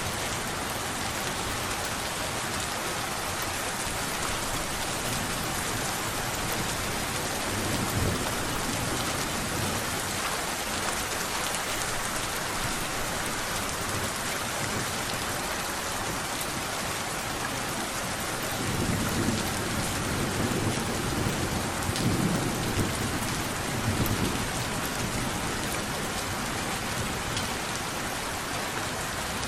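Steady rain falling, with low rumbles of thunder about eight seconds in and again over several seconds past the middle.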